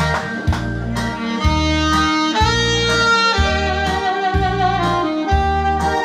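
Instrumental backing track of a Korean trot song playing its intro: a sustained, wavering lead melody over a low bass note that strikes about once a second.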